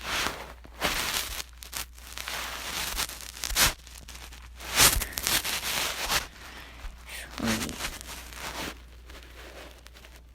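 Irregular rustling and crinkling noises, with a couple of louder sharp bumps about four and five seconds in.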